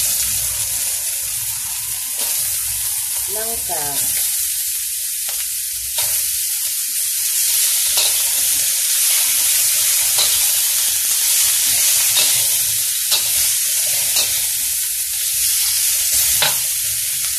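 Shredded jackfruit frying in hot oil in a steel wok with garlic, ginger and dried prawns, a loud steady sizzle that starts suddenly as the jackfruit goes in. A metal spatula clicks and scrapes against the wok now and then as it is stirred.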